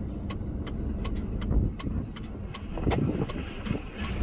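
Low, steady rumble inside a vehicle's cabin, with an even, fast ticking of about four clicks a second over it.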